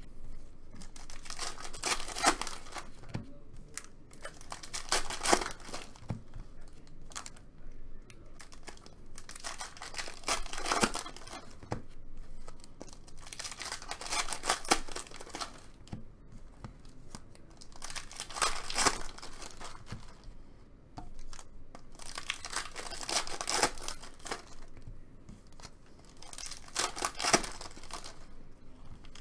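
Foil trading card pack wrappers being torn open and crinkled, in bursts every four to five seconds.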